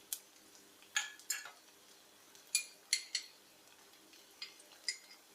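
A metal utensil clinking against the frying pan while stirring chopped ginger and garlic in hot oil: about eight short, sharp metallic clinks at uneven intervals.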